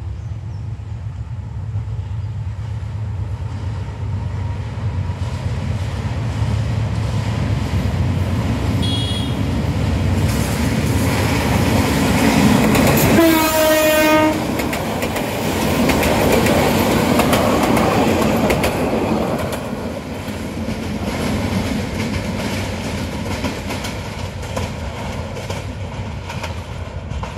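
Diesel locomotive hauling a parcel train approaches and passes close by: the engine's low rumble builds, and about thirteen seconds in a loud horn blast drops in pitch as the locomotive goes past. The coaches then rattle and clatter over the rail joints, gradually getting quieter.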